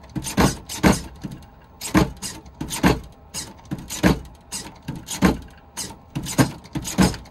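Servo-driven suspension of a Redcat gold-edition lowrider RC car working: the car lifts, drops and bounces on a tabletop. There is a sharp knock about every second with smaller clicks between, and the servos whir.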